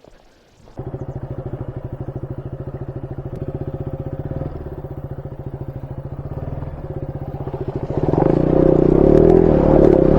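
Motorcycle engine starting about a second in and then idling with an even, rapid pulse. Near the end it is revved and gets louder.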